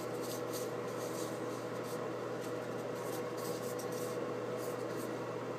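Steady machine hum with a constant tone, overlaid by soft, irregular crinkling of disposable gloves as the hands move.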